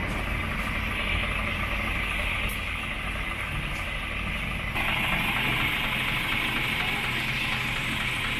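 Coach bus engine idling steadily, a low rumble under a constant hiss that grows brighter about five seconds in.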